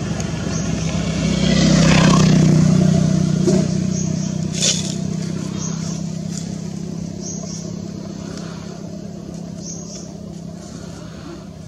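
A motor vehicle engine running with a steady low hum, loudest about two seconds in and then slowly fading away as it passes. Short high chirps come through in the second half.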